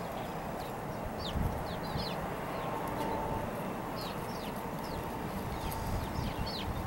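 Birds chirping: short, high, falling chirps, a few at a time throughout, over a steady low outdoor rumble.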